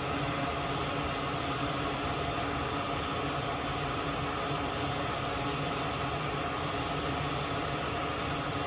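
Steady background hiss with faint even hum tones, unchanging throughout; nothing stands out above it.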